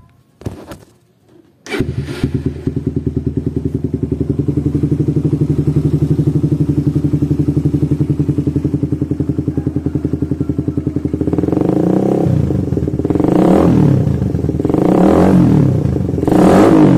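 A Suzuki Satria FU 150's single-cylinder four-stroke engine, fitted with a PE28 carburettor, a BRT CDI and an aftermarket Lonerider exhaust. It catches about two seconds in and idles with a fast, even pulse. In the last few seconds it is revved in several throttle blips.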